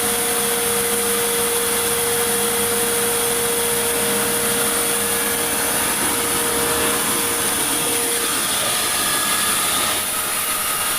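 Sawmill saw cutting through meranti wood: a loud, continuous cutting noise with a steady tone that drops away about eight seconds in.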